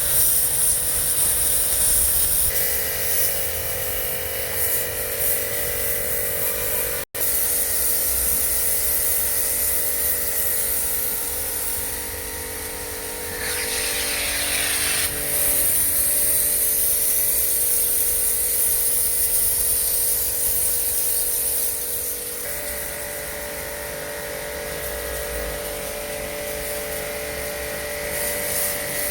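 Pressure washer running: a steady motor hum with a constant high hiss of spray. Its tone shifts about two and a half seconds in and again near the end, and a louder burst of hissing comes around the middle. The sound cuts out for an instant about seven seconds in.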